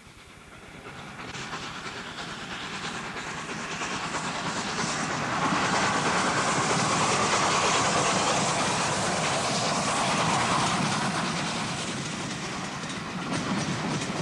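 LNER A4 Pacific steam locomotive and its coaches passing at speed, with a quick clatter of wheels over rail joints. The sound swells over the first half, peaks about halfway through and slowly eases off.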